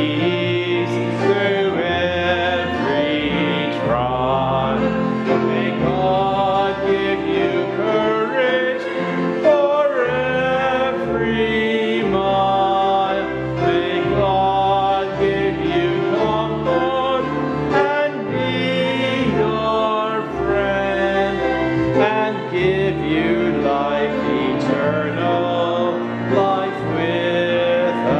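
A slow hymn of blessing sung with instrumental accompaniment, the words 'May God give you peace through every trial... comfort and be your friend... and give you life eternal, life without end.'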